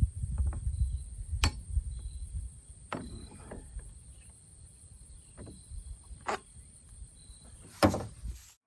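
Scattered sharp clicks and knocks from working on a Husqvarna 55 Rancher chainsaw to change its chain, over a low rumble. A steady high insect drone runs underneath. The sound cuts off abruptly near the end.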